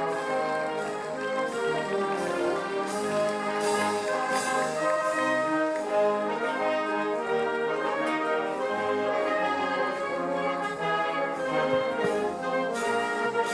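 Brass band music playing full, sustained chords, with the chords changing every second or so.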